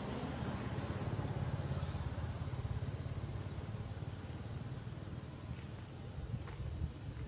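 An engine running steadily off-screen, a low rumble; two faint clicks near the end.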